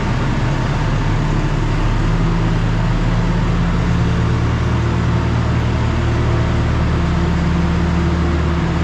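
Heavy vehicle engine running steadily at constant speed, a low hum whose note shifts slightly two to three seconds in.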